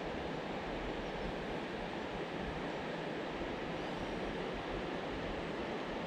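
River water running steadily: an even, unbroken rush.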